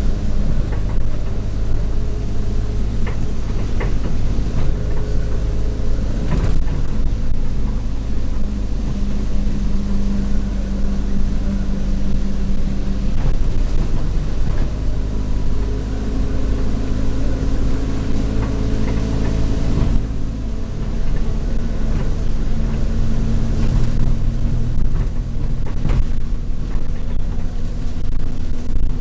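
Alexander Dennis Enviro200 bus heard from inside, its engine and Allison automatic gearbox running steadily under way, with the rattles of the bus body and a few knocks. The engine note changes about 20 seconds in.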